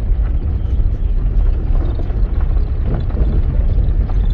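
A Toyota car's engine and tyre rumble heard from inside the cabin, pulling steadily in second gear on an unpaved road.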